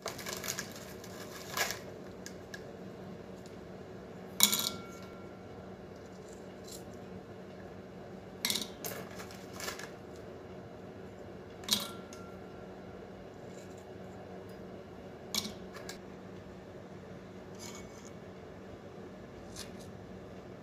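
Oreo biscuit halves and cream being dropped and scraped into stainless steel bowls: about half a dozen sharp clinks, the loudest about four seconds in, some with a brief metallic ring, over a steady low hum.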